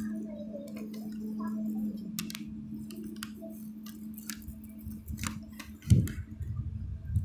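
Electric locomotive standing at a station platform, giving off a steady hum that weakens after about two seconds, with low rumbling underneath. Scattered faint clicks, and a sharp thump about six seconds in.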